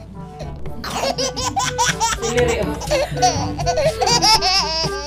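High-pitched laughter over light, bouncy background music with a steady beat.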